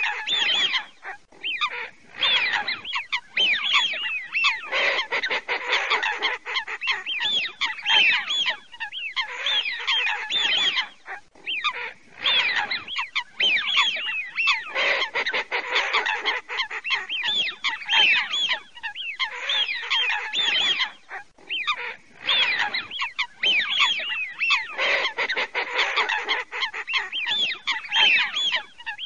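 A large flock of coots and wigeon calling together: many overlapping whistled calls, with harsher lower calls beneath them. The calling comes in loud stretches of a few seconds, each followed by a brief lull.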